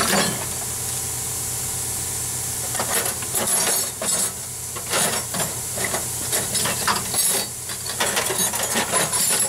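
Hand ratchet clicking in several short bursts as a rusted lower shock-absorber nut on the rear axle is worked loose, over a steady hiss.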